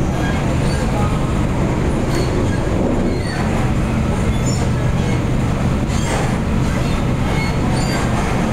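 An MTR K-Train electric multiple unit running at speed, heard inside the passenger car: a steady, loud low rumble of wheels on rail, with brief high-pitched squeals here and there.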